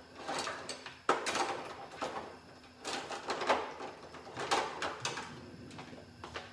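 Off-camera kitchen handling: four or five short sliding and rattling sounds, roughly a second apart, like a drawer and utensils being handled.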